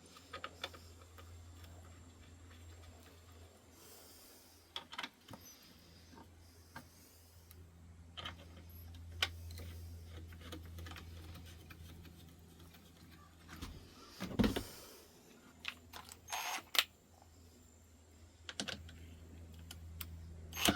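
Scattered small clicks and light knocks of plastic console trim parts and screws being handled and fitted, with a slightly louder cluster of knocks about two-thirds of the way through, over a steady low hum.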